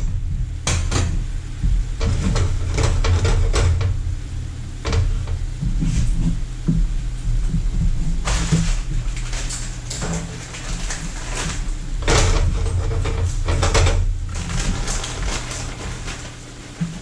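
Metal spatula knocking and scraping against a skillet as soy-glazed fish fillets are worked in the pan to keep them from sticking, several separate knocks over a steady low hum.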